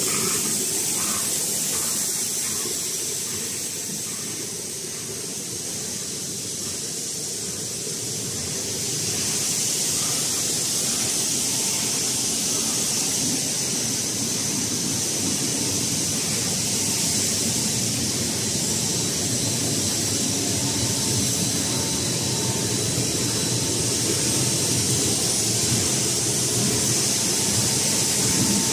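A plastic recycling pelletizing line running, a steady hiss over a low rumble. At first it is water churning through PE flakes in the washing tank; after a short dip in level, the extruder line's machinery runs on steadily, with a faint thin whine.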